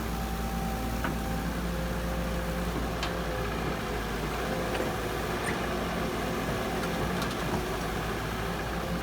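Heavy diesel engine of a construction machine running steadily at an even, unchanging speed, with a few light clicks.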